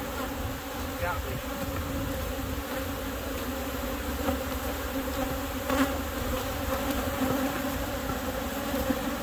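Steady buzzing hum of a large number of honey bees flying around opened hives, with a brief knock about six seconds in.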